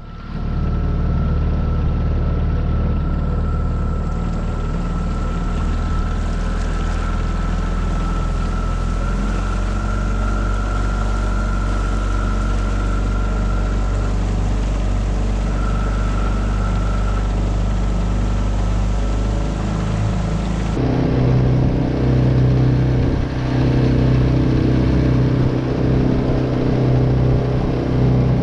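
Tohatsu 9.8 four-stroke outboard motor running steadily under way, with water and wind noise. About two-thirds of the way through, its pitch and loudness step up.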